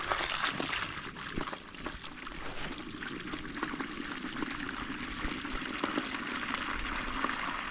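Water from a hose pouring in a thin stream into a shallow pan that already holds water, a steady splashing trickle.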